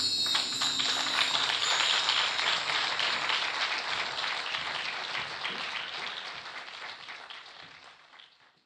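Applause: dense clapping that fades gradually away to nothing by the end. The closing notes of the music die out in the first second or so.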